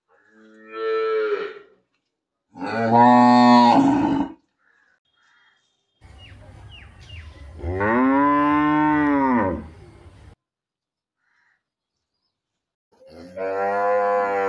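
A cow mooing four times: two short moos, then a long drawn-out moo that rises and falls in pitch, and another moo starting near the end.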